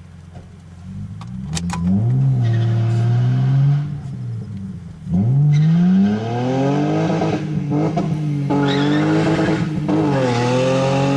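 BMW E30 Touring's engine revving hard during a burnout, its rear tyres spinning and squealing on the asphalt. The revs climb about a second in, drop briefly around four seconds in, then rise again and hold high with a wavering pitch as the tyre squeal builds.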